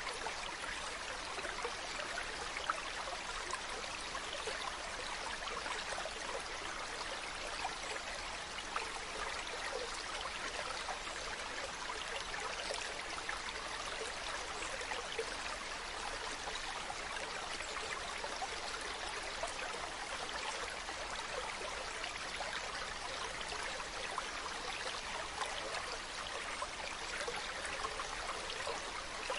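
Mountain stream running steadily over rocks, a continuous rushing and trickling of water.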